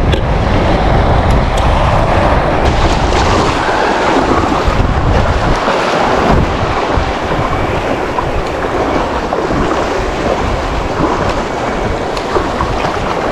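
Wind buffeting the microphone over the wash of small breaking waves and surf, a loud, steady noise with a deep rumble.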